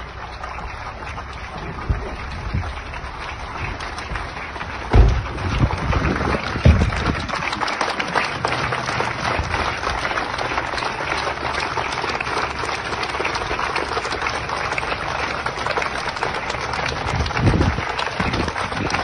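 Crowd applause from a large group of people clapping, building up about five seconds in and then steady and dense. A few dull low thumps stand out around five to seven seconds in and again near the end.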